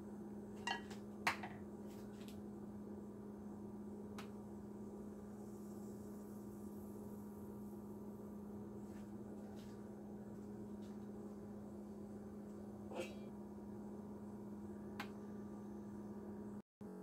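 A steady low electrical hum, with a few faint clinks of a metal spoon against a ceramic bowl about a second in and a couple of light taps later on.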